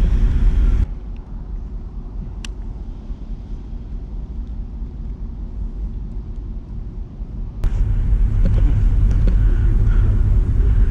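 Wind rumbling on the microphone of a body-worn action camera. The rumble drops abruptly about a second in, a single sharp click comes a moment later, and the heavy rumble returns near the end.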